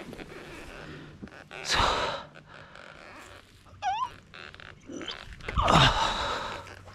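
A man's heavy, audible breaths and sighs, a loud one about two seconds in and a longer one near the end, as he stops to rest, spent by the heat; a short squeak sounds near the middle.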